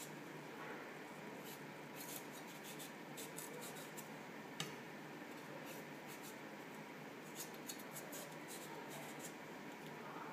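Kitchen knife shaving and paring a carrot held in the hand: faint, irregular scraping strokes, with one sharp click about four and a half seconds in.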